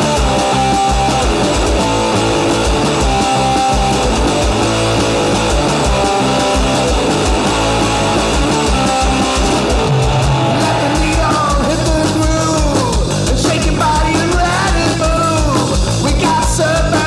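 Garage rock song playing: electric guitars over a steady drum beat.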